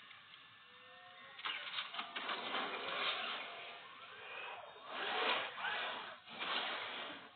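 Mechanical whirring and hissing of an AMP mech suit's servos and hydraulics as it moves, coming in about a second and a half in, then rising and falling in several surges with brief whines.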